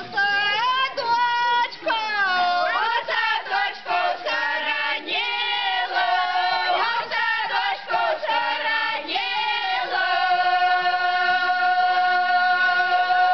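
A group of village women singing a Polesian round-dance song of the 'Strela' rite, unaccompanied and loud, in short phrases that slide between notes. About ten seconds in, they settle onto one long held note.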